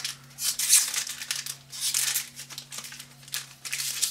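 Foil wrapper of a Magic: The Gathering booster pack being torn open by hand, crinkling and tearing in several short bursts.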